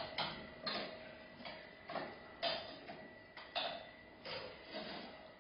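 Egg waffle tongs scraping and tapping at the edge of an electric egg waffle pan, picking off the excess cooked batter: a string of short scrapes about two a second, growing fainter.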